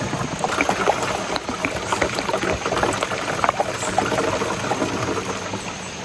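Water poured from a plastic bottle into a backpack sprayer's tank, splashing and gurgling to rinse it out. It eases off near the end.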